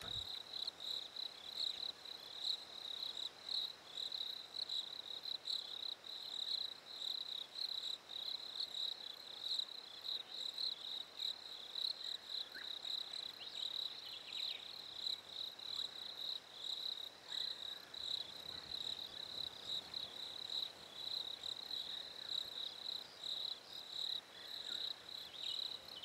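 Crickets chirping in a steady, rapidly pulsing high trill that keeps on without a break.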